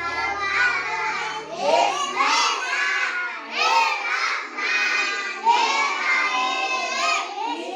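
A class of young children shouting and calling out together, many high voices overlapping without a break.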